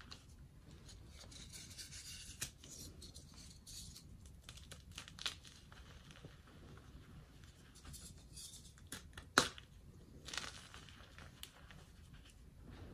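Hands crumbling and squeezing dyed powdery chalk: quiet dry crunching and rustling, with scattered sharp crackles as clumps break. The sharpest crackle comes about nine seconds in.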